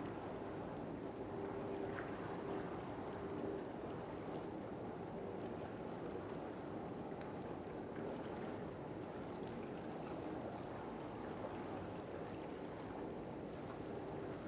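Container ship under way, a steady engine drone with one held humming tone that swells and fades, over a haze of water and wind noise.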